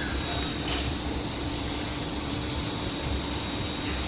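A machine runs steadily, with a constant hum and a high whine and no change in pitch.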